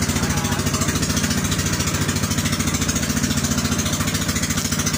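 Outrigger boat's engine running steadily with a rapid, even beat, under a hiss of wind and splashing sea water.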